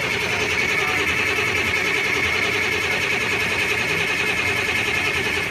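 Starter motor cranking a Detroit Diesel Series 60 marine diesel with starting disabled, so the engine turns over without firing to circulate oil before the first real start. A steady, loud whining churn that cuts off suddenly at the very end.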